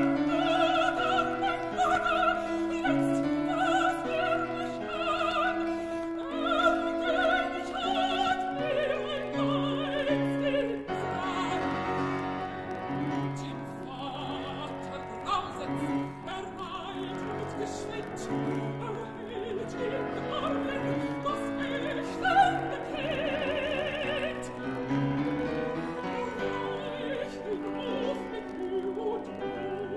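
Operatic woman's voice singing a German art song with wide vibrato, accompanied by piano.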